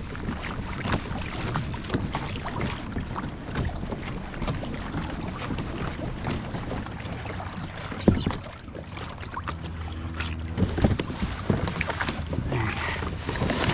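Wind buffeting the microphone over water slapping and sloshing against plastic kayak hulls. About eight seconds in comes a single sharp knock, the loudest moment, followed by smaller knocks.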